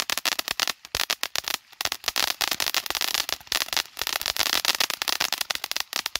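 A multi-tube ground fountain firework from Phantom Fireworks spraying, with a steady hiss and dense, rapid crackling.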